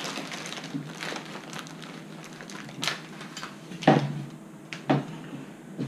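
Plastic snack wrappers and bags crinkling as a pile of packaged snacks is gathered up and set down, with a few louder knocks about three, four and five seconds in.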